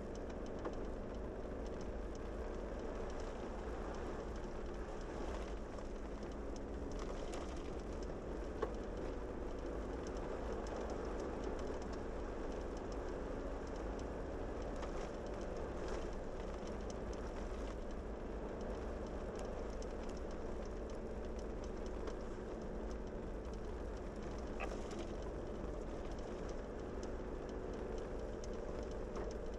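Steady engine and tyre noise of a vehicle driving along a paved highway, with a few light ticks.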